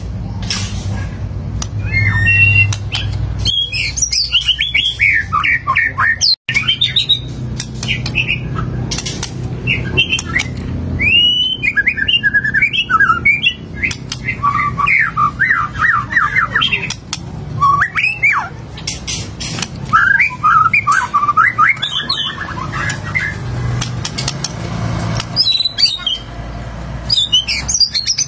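White-rumped shama singing continuously: a fast, varied run of whistled and chattering phrases, one after another, with a momentary break about six seconds in.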